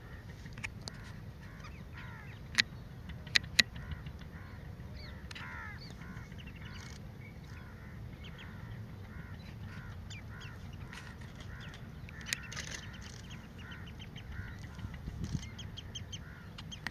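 A flock of birds calling: many short calls overlapping without a break, over a low steady rumble. Three loud, sharp clicks come about two and a half to three and a half seconds in.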